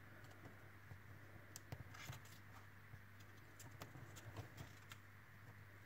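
Near silence with faint, scattered small clicks and taps as thin craft wire is pressed and bent by hand against a wooden template, over a faint low hum.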